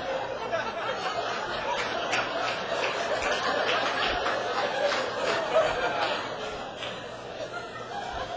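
Comedy club audience laughing and applauding, dying down near the end.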